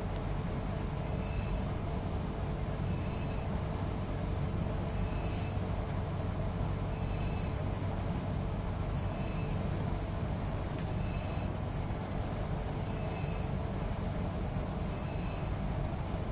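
Hand-squeezed nebulizer puffing Bitrex test solution into a fit-test hood: a short hiss about every two seconds, eight in all, over a steady low hum.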